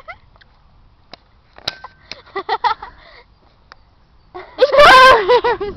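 A cocker spaniel gives a loud, wavering, high-pitched yelp lasting about a second, a little past the middle. The cry comes as a Dobermann tugging on the same stick has her ear in its mouth. Faint clicks and a quiet voice come before it.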